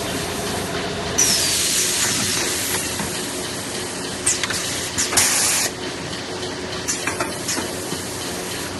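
Semi-automatic multi-roll toilet paper packing machine running with a steady hum. About a second in, a long hiss of compressed air comes as its pneumatic pusher cycles, with a whistle falling in pitch. A short sharp hiss follows about five seconds in.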